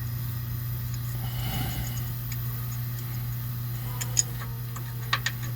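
A few light metallic clicks, bolts and hand tools being handled while fitting the bolts of a sway bar bushing bracket, over a steady low hum.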